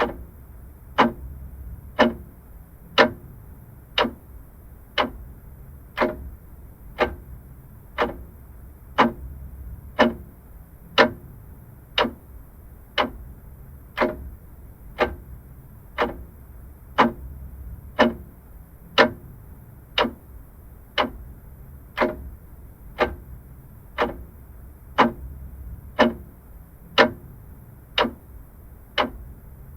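Vintage mechanical clock ticking steadily, about one tick a second, over a faint low background rumble.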